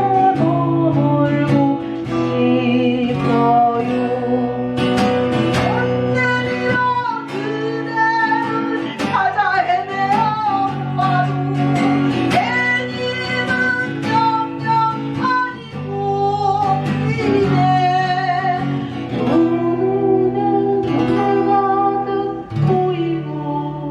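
Slow song played on acoustic guitar, plucked notes over a repeating bass line, with a voice holding long wavering notes without words.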